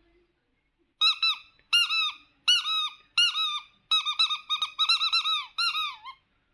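A squeaky toy squeaking in quick runs of short chirps that rise and fall in pitch, about seven runs in a row.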